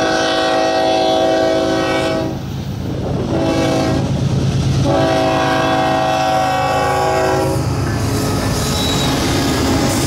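Freight diesel locomotive's air horn sounding a chord of several pitches: a long blast ending a couple of seconds in, a short blast, then another long one, the close of a grade-crossing warning signal. Under it the locomotives' engines and the train's rumble run steadily.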